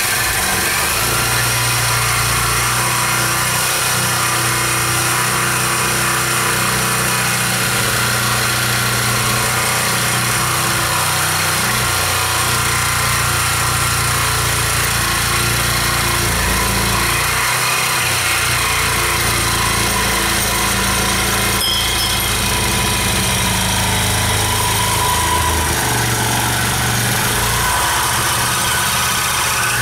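Reciprocating saw (Sawzall) with a worn, burnt-out blade cutting through 1.5-inch motorcycle exhaust pipe held in a vise. It runs loud and without a break, its motor pitch wavering up and down as the cut goes on.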